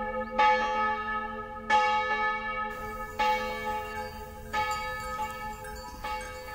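Village church bells ringing, a strong stroke a little more than every second with weaker strokes between, each ringing on under the next over a low lingering hum.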